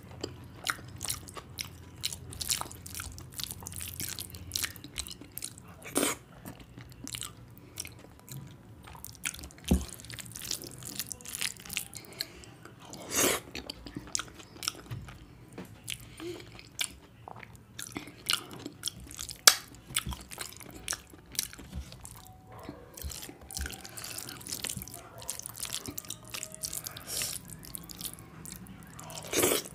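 Close-up chewing and mouth sounds of a person eating rice and curry by hand: wet, irregular clicks and smacks of lips and tongue, with a few louder smacks scattered through.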